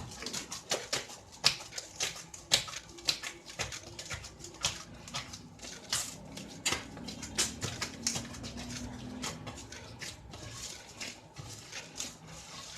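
Hands kneading soft, sticky bread dough in a bowl: irregular wet slaps and squelches, a few each second.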